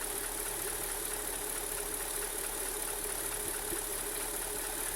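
2003 Mercedes-Benz S430's V8 engine idling warm, steady, with a light ticking at operating temperature that the owner wonders may be linked to its oil pressure falling to below 20 psi.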